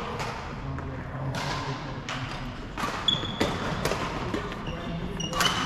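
Badminton racquets striking shuttlecocks, a sharp smack about every second, echoing around a large hall, with short high squeaks of shoes on the wooden court floor.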